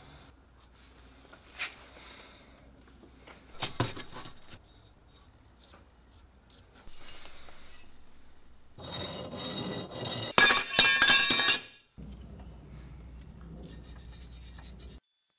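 A flat hand file scraping on steel square tubing, with sharp clinks and ringing from steel pieces being handled; the clinks and ringing are loudest about ten to eleven seconds in.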